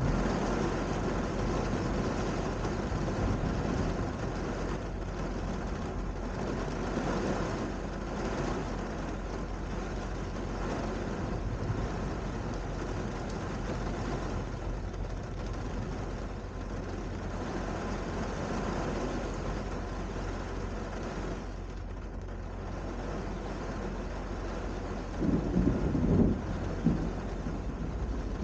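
Thunderstorm: steady rain with a low continuous rumble, and a louder burst of rumbling near the end.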